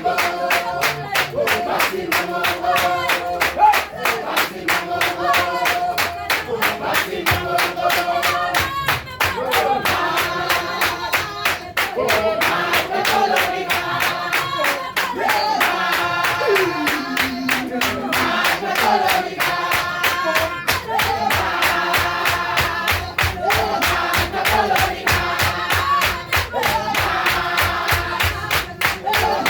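Upbeat gospel music with a fast, steady beat.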